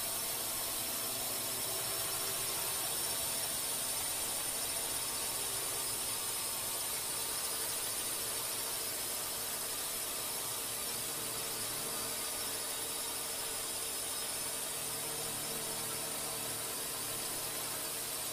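Steady hiss with a constant high whine and fainter steady hum beneath, unchanging throughout; no blasts or shots are heard.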